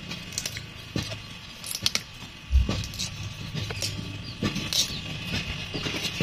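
Young bamboo side shoots being snapped off the clump by hand, a series of sharp pops and cracks over rustling of dry sheaths and leaves, with one heavier dull thump about two and a half seconds in.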